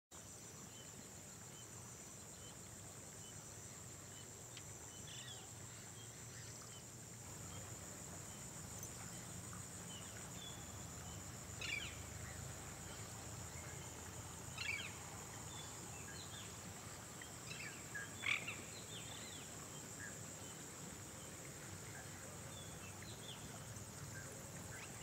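Faint rural ambience: a steady, high insect chorus, with scattered short bird calls, three of them louder in the middle.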